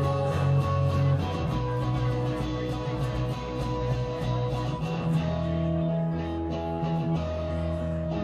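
Live rock band playing an instrumental passage, electric guitar strummed over bass guitar, with no vocals.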